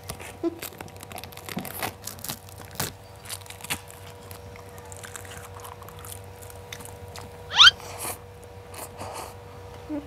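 Dried seaweed sheets crunching as two children bite and chew them: scattered crackly crunches over a faint steady hum. About seven and a half seconds in, a brief rising squeak is the loudest sound.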